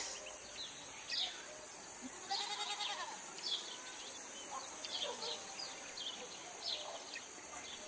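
Quiet rural ambience: a short animal bleat about two and a half seconds in, many brief high bird chirps and a steady high hiss.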